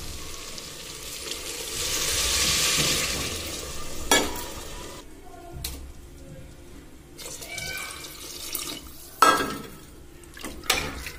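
Water poured into a hot aluminium pressure cooker over soya chunks and potatoes in tomato gravy, splashing and hissing for a couple of seconds. Two sharp metal knocks against the cooker follow, about four and nine seconds in.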